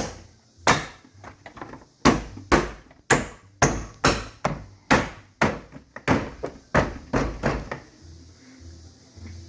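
Plastic door panel being struck repeatedly to snap its push-in clips into the truck's door: about fifteen sharp knocks, roughly two a second, that stop about two seconds before the end.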